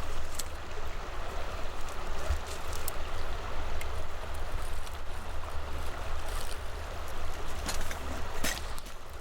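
Water of a small creek running steadily, over a low rumble and a few faint clicks.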